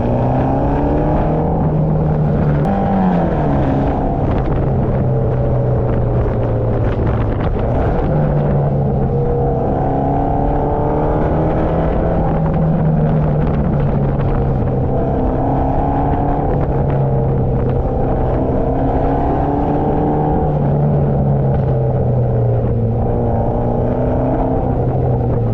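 Mitsubishi Lancer Evolution X's turbocharged 2.0-litre four-cylinder running under way. The engine pitch drops early on, holds fairly steady through long stretches of cruising, and climbs again near the end.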